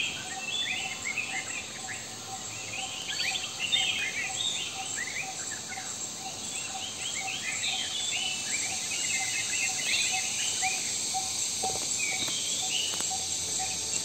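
Forest bird chorus: many short chirping and whistled calls from several birds, over a steady buzzing of insects.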